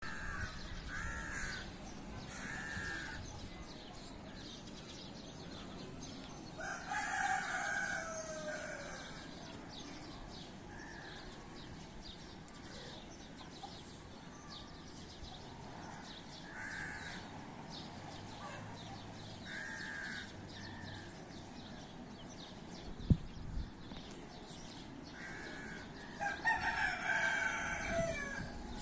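A rooster crowing twice, once about seven seconds in and again near the end, with short single calls scattered in between. There is one sharp click about two-thirds of the way through.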